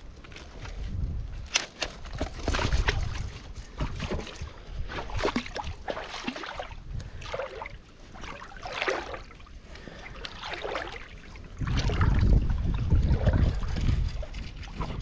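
A person wading across a shallow river, the water sloshing and splashing in uneven surges with each step.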